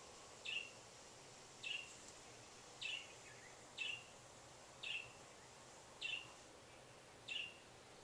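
A pet parrot squawking "kwaak" over and over: seven short calls about a second apart.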